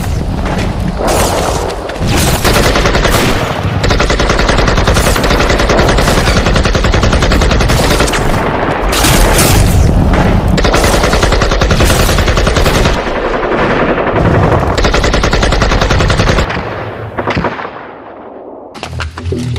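Automatic gunfire sound effects: long, rapid bursts of machine-gun fire that die away about three seconds before the end.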